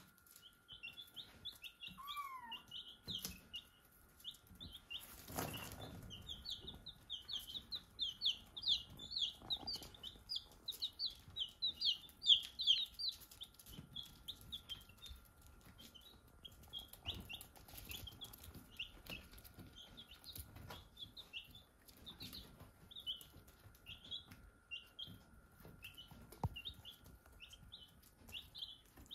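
Baby chicks peeping: a steady stream of short, high peeps from several birds, busiest in the first half and thinning out later. A short falling call sounds about two seconds in, and a brief rustle or bump about five seconds in.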